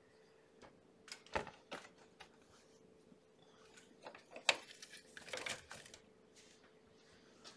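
Scattered clicks, knocks and short rustles of handling around a wire kennel pen and blanket, with the sharpest click about four and a half seconds in, over a faint steady hum.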